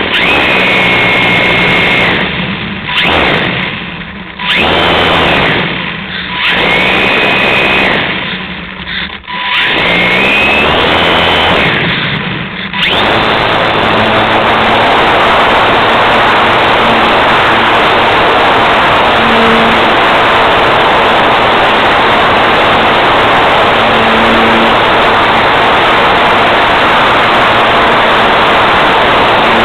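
Radio-control model airplane's motor and propeller, heard close from the plane's onboard camera. It is throttled up in a string of short bursts with a whine that rises and falls, cutting back between them. From about 13 seconds in it is held at steady full power for the takeoff and climb.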